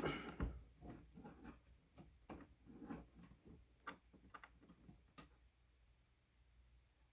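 Soft, irregular handling knocks and clicks, several to the second, the loudest right at the start and the last distinct one about five seconds in.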